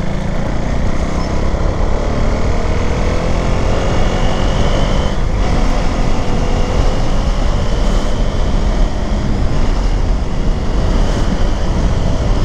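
Wind buffeting and road noise on the move on a KTM Duke 390, with its single-cylinder engine running underneath and rising slightly in pitch in the first few seconds.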